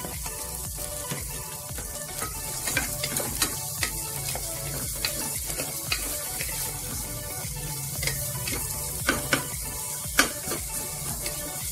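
Sliced onions sizzling in hot ghee in a metal pot as they start to sauté, stirred with a wooden spatula that clacks and scrapes against the pot now and then.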